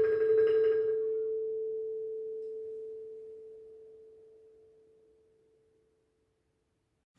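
The last note of a mallet-percussion piece ringing out: a single sustained tone that slowly fades away over about five seconds, with fainter higher ringing dying out in the first second.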